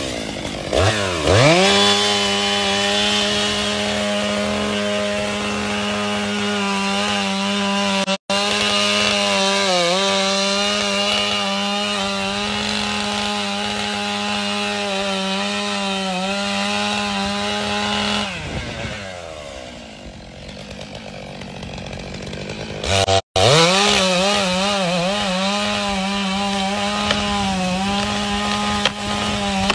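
Gas chainsaw running at high revs, its engine pitch dipping again and again as it bogs while cutting into wood. It revs up in the first couple of seconds, slows and drops in pitch for a few seconds past the middle, and has two abrupt breaks, about 8 and 23 seconds in.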